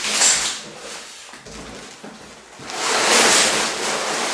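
Sealed plastic bags of LEGO pieces crinkling and rustling as they are pulled out of a cardboard box and dropped on the pile, with cardboard scraping. A short burst at the start, quieter for about two seconds, then steady loud rustling.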